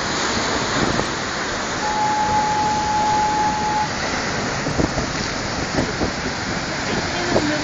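Heavy storm surf: big swells breaking and rushing in a steady roar of water. About two seconds in, a thin steady tone sounds over it for about two seconds.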